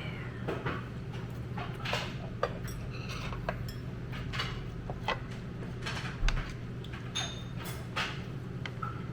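Light clinks and taps of cutlery against dishes at a meal, scattered irregularly, some ringing briefly, over a steady low hum.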